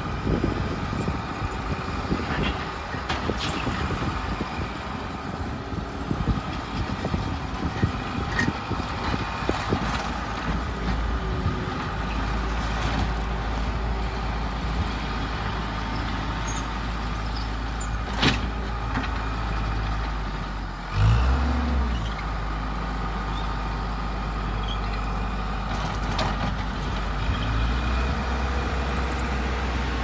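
Diesel engine of a Case 450CT compact track loader running steadily as it works over gravel, with scattered clicks and clanks. A brief louder low surge comes about two-thirds through.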